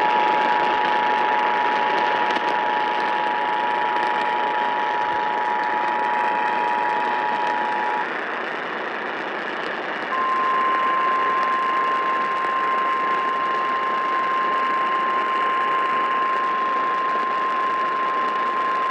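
Emergency Alert System attention signal heard over AM radio: the two-tone alert (853 and 960 Hz sounded together) holds steady for about eight seconds, stops, and about two seconds later a single steady tone a little higher, like the 1050 Hz weather radio alert tone, sounds for about nine seconds. Steady AM radio hiss lies under both.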